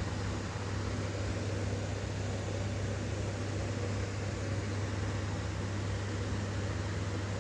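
Steady low hum with an even hiss over it, unchanging throughout, like a running fan or electrical hum in the room.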